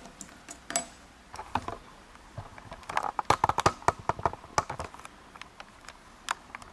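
Small metal parts of a dismantled pin-tumbler lock cylinder clicking and tapping against each other and a hard surface as they are handled: scattered light clicks, with a quick run of them about halfway through.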